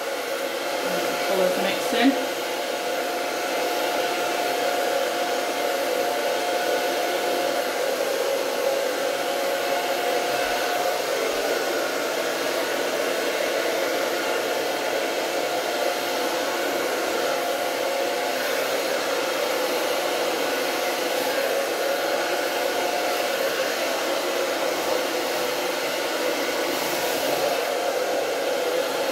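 Handheld hair dryer running steadily at close range, blowing wet acrylic paint across a canvas, with a steady rushing of air. A faint whine sits in the air noise, fading after about ten seconds and returning near the end; a brief click about two seconds in.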